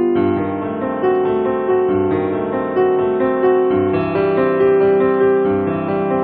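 Background piano music: a slow, even melody of held notes over a steady accompaniment.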